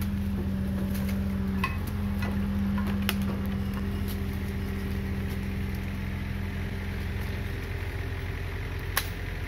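Komatsu PC45 mini excavator's diesel engine running steadily at a low, even hum, with a few short sharp clicks and knocks from the work over it.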